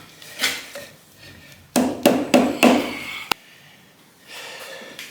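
Hammer blows on a stuck metal engine part during teardown: a light knock, then four hard strikes in quick succession about a second and a half in, and a sharp click a moment later.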